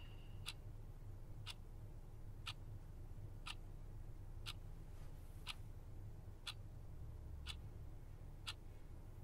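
A clock ticking steadily, one sharp tick each second, over a low steady room hum.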